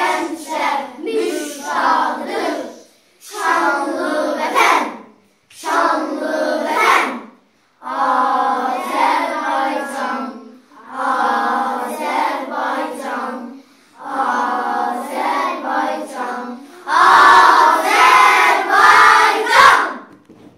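A group of young children singing together unaccompanied, in short phrases with brief breaks for breath between them; the last phrase near the end is the loudest.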